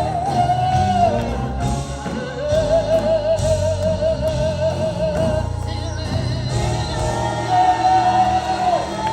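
Gospel song with band accompaniment: a solo voice holding long notes with a wide vibrato over a steady bass line.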